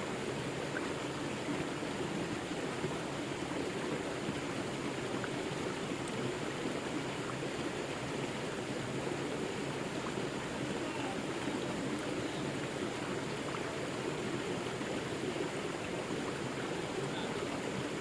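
Forest river flowing: a steady, even rush of water with no breaks.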